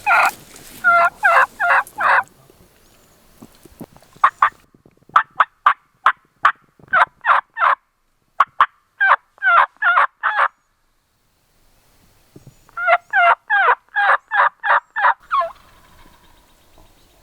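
Eastern wild turkey calling: several runs of rapid, loud, repeated call notes with short pauses between them.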